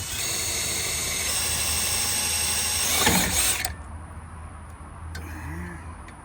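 Power drill running steadily under load as it bores a hole. It stops abruptly after about three and a half seconds.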